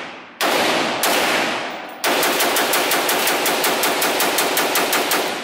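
AK-pattern rifle fired in an indoor shooting range: two single shots about half a second apart, then a fast string of about six shots a second for some three seconds. Each shot rings on off the range walls.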